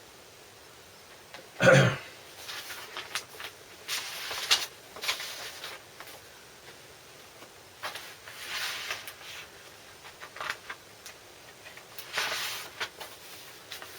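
Record sleeves being handled: repeated rustling and sliding of paper and plastic as vinyl LPs are drawn out of their sleeves, with a short, louder sound about two seconds in.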